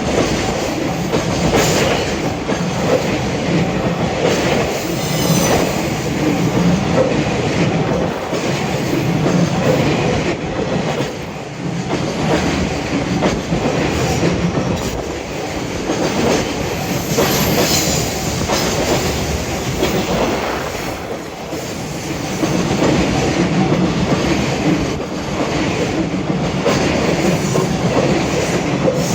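Freight train hauled by an EF210 electric locomotive rolling past, its wheels clattering steadily over the rail joints.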